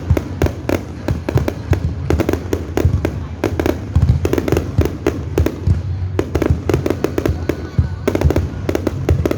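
Fireworks display going off continuously: a dense run of bangs and crackles several times a second over a steady low rumble, with no pause.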